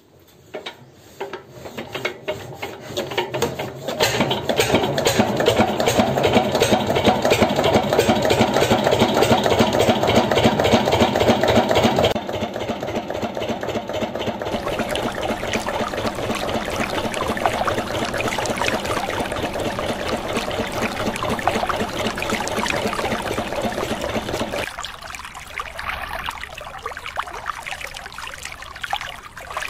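Small motor of a miniature model diesel engine spinning up and running, driving a belt, pulley and crank that work a toy hand pump, with a fast steady clatter. Near the end the sound thins to a hiss and trickle of water.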